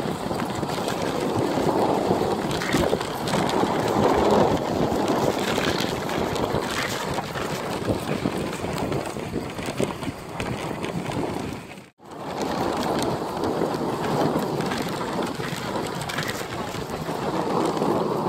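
Dog sled gliding over a snowy trail: a steady swish and scrape of the runners on the snow, mixed with wind buffeting the microphone. The sound cuts out briefly about twelve seconds in.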